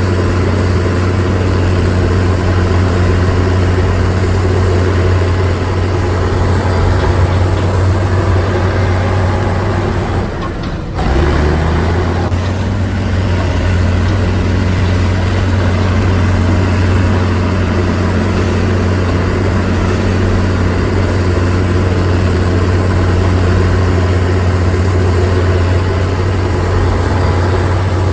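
Heavy diesel construction machinery engine running steadily under load with a low, even drone. It drops briefly just under halfway through, then carries on.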